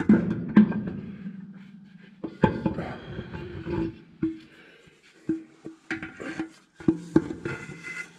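Heavy metal parts of a grain drill's fill auger mount clanking and knocking as they are shifted. The first strikes ring on for a second or so, and a string of lighter knocks follows.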